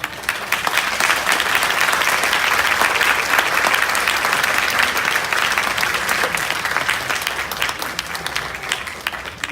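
Audience applauding, starting abruptly and dying away gradually over the last few seconds.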